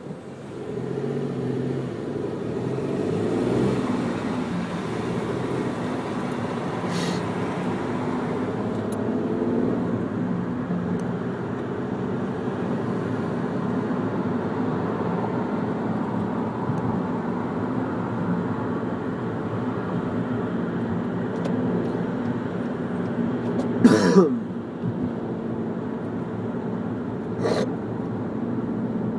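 A car's engine and road noise while driving, heard from inside the car, growing louder about a second in. A short sharp thump stands out late on, with a couple of fainter clicks.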